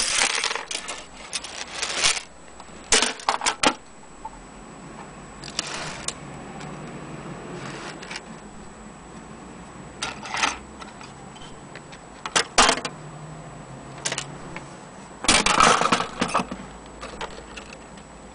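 Metal parts of an antique longcase clock clinking and jangling as they are handled: loose iron weight chains, a brass pulley, gear wheel and hands knocking together in scattered bursts a few seconds apart, the loudest at the start and again near the end.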